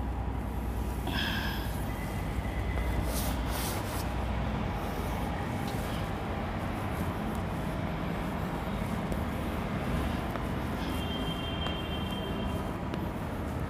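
Chalk drawing lines on a blackboard over a steady background rumble, with a brief high squeak about a second in and another near the end.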